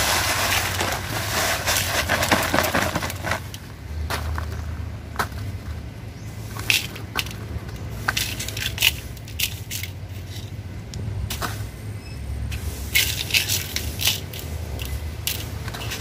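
Gritty granular material pouring out of a sack into a metal basin for about the first three seconds. After that, hands stir and scrape the mix of soil and small stones against the basin, with scattered crunches and clicks.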